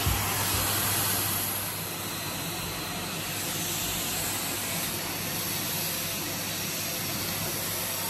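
Numatic Henry cylinder vacuum cleaner running steadily, air hissing through its hose and tool over a low motor hum.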